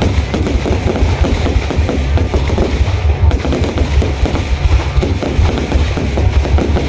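Fireworks display going off in a dense, continuous barrage: rapid crackling bursts over a heavy low rumble of booms.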